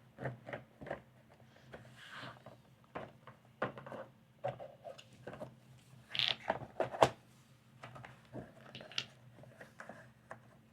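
Wooden puzzle box and tray being handled, with scattered light knocks and clicks as the pyramid is set onto its tray. A cluster of louder knocks comes about six to seven seconds in, over a faint low hum.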